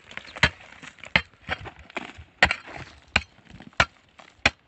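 A hoe blade striking and chipping into the hardened earth crust of a mound charcoal kiln, about seven sharp blows at a steady pace, breaking holes through the dome to open the kiln.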